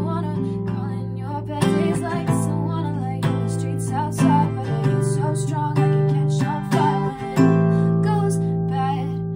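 Acoustic guitar strummed in a steady rhythm through changing chords, with a woman singing softly over it.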